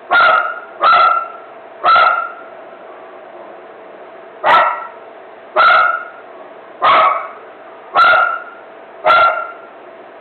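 A dog barking repeatedly: three barks in quick succession, a pause of about two seconds, then five more at about one a second.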